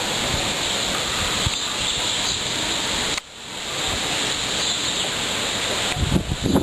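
Strong storm wind gusting in a steady hiss, briefly dropping off about three seconds in before building back. Near the end, gusts start buffeting the microphone in uneven low thumps.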